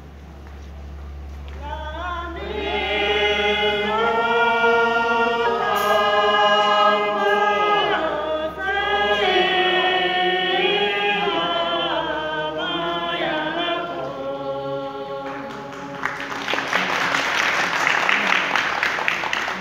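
A group of men and women singing a slow Syabru dance song together in unison, unaccompanied, starting about two seconds in. Near the end the singing gives way to audience applause.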